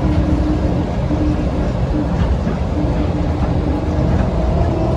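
Inside an airport people-mover train (DFW Skylink) running along its elevated guideway: a steady low rumble from the running gear, with a faint hum that comes and goes.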